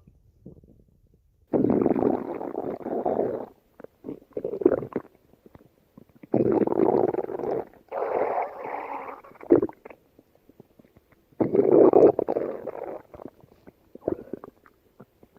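A person's stomach growling in three long rumbling bouts of two to three seconds each, with shorter rumbles in the gaps between them.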